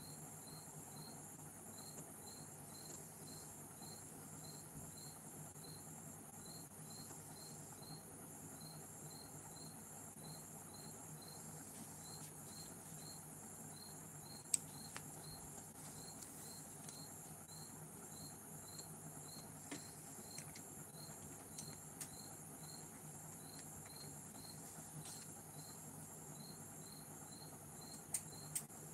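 A cricket chirping steadily, about three chirps a second, with a short pause near the middle. A few sharp clicks, the loudest about halfway through and two near the end.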